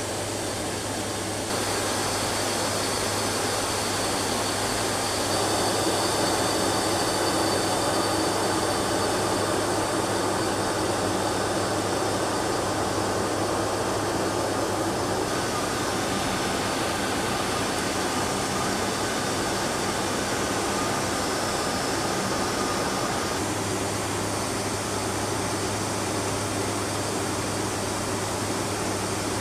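Steady cabin drone of a C-130 Hercules's four turboprop engines and propellers heard inside the cockpit in flight: an even rushing noise over a constant low hum.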